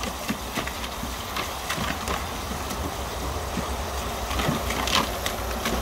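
Garden hose spraying a steady stream into a plastic paddling pool, with a giant schnauzer puppy's front paws splashing in the water in short, irregular splashes.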